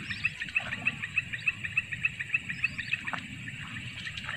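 Whistling ducks (belibis) calling: a fast, regular run of short high whistles, about four a second, growing fainter after about three seconds.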